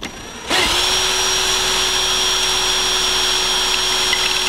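Cordless drill spinning an axial flux alternator rotor built from wet-saw blades carrying neodymium magnets. The drill starts about half a second in and runs at one steady speed with a steady high whine.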